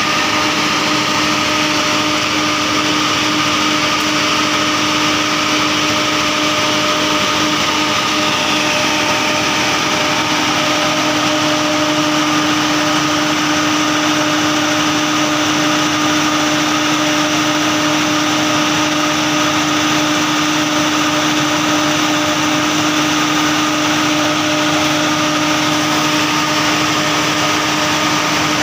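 Fortuner 100 kVA soundproof diesel generator set running steadily at constant speed after start-up, an even engine drone with a steady hum at a fixed pitch.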